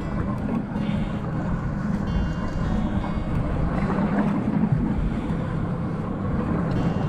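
Steady wind rumbling on the microphone over the open water, with a low boat hum underneath and no distinct events.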